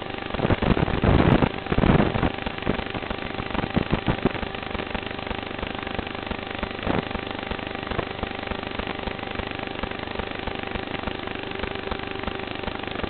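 FPV quadcopter's brushless motors and propellers whining steadily under hard throttle, picked up by the camera's built-in microphone. Louder gusty rushes of wind and prop wash buffet the microphone in the first couple of seconds and again around four and seven seconds.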